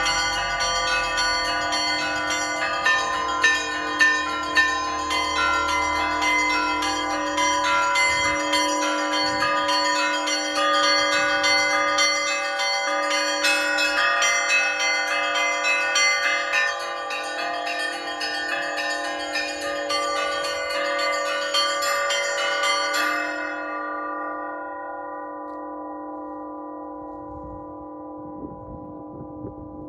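Orthodox church bells rung as a full peal (zvon): rapid strikes on the small bells over the steady hum of the larger ones. About 23 seconds in, the striking stops and the bells ring on, slowly fading.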